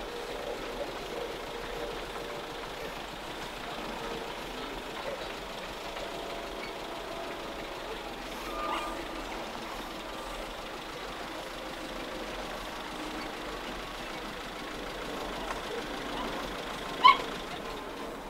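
Steady outdoor background of distant engines running. Near the end comes one brief, loud, high-pitched toot.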